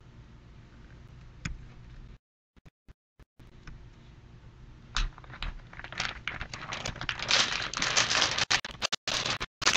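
Brown kraft-paper wrapping being unfolded and crinkled by hand, loud and continuous from about six seconds in. Before that only a faint hum, with a low thump about five seconds in.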